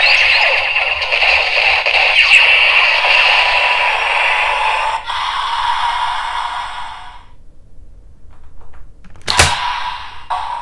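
Electronic sound effect played through the small speaker of a DX Zero-One Driver toy belt with the Rising Hopper Progrise Key fitted, dense and noisy, lasting about seven seconds before fading out. A sharp plastic click near the end as the key is worked by hand.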